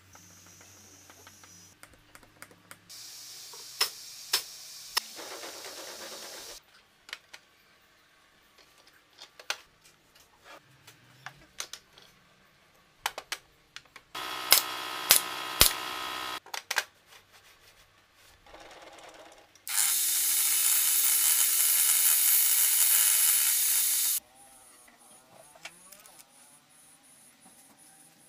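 Short bursts of power-tool noise that start and stop abruptly, with clicks and handling knocks between them. The loudest is a table saw cutting plywood, running steadily for about four seconds in the last third and then cutting off suddenly.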